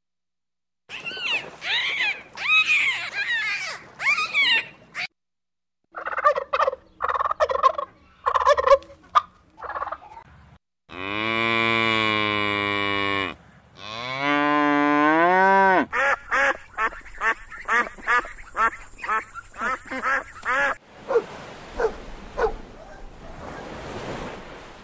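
A series of animal calls: short repeated calls in the first half, then a cow mooing twice in long calls, the second rising and then falling, followed by quick regular pulses.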